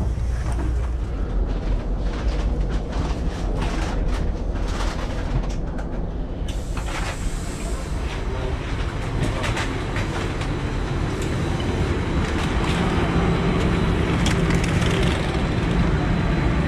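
Train noise: a steady low rumble with scattered clicks and rattles, growing brighter about six and a half seconds in.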